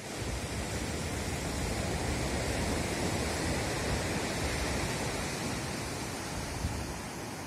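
Wind buffeting the microphone in an uneven low rumble, over a steady rush of surf breaking on the shore below.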